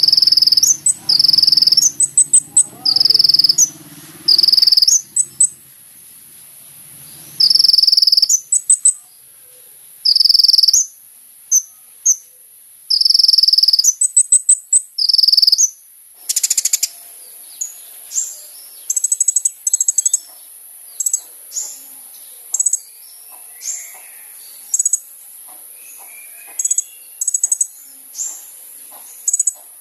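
Kolibri ninja sunbird singing. In the first half it gives loud, shrill notes about a second long, repeated roughly every second and a half. From about halfway on it switches to a run of short, very high chirps and twittering trills.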